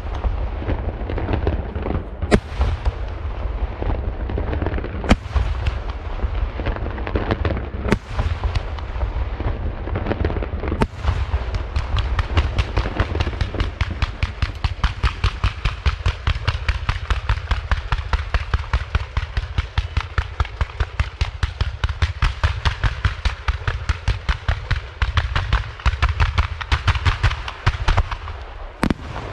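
Fireworks display by Lieto Carmine e Figli: single sharp bangs a few seconds apart, then from about eleven seconds in a fast, continuous string of bangs, several a second.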